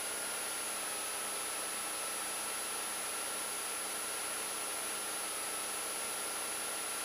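Steady hiss from an aircraft intercom audio feed, with a faint steady whine running through it.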